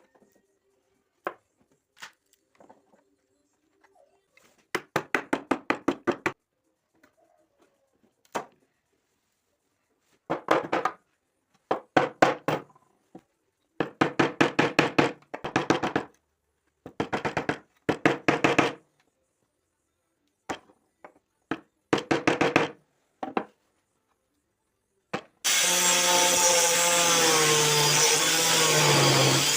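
Short bursts of quick, repeated back-and-forth strokes on wood, each a second or two long and a few seconds apart, typical of hand sawing or scraping. About 25 seconds in, an electric power tool starts and runs loudly, its motor pitch wavering.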